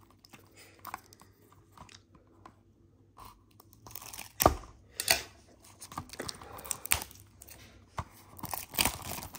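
A diecast model's cardboard box, in a clear plastic sleeve, handled and turned over in the hands: faint clicks at first, then from about four seconds in a run of sharp crackles and crinkles.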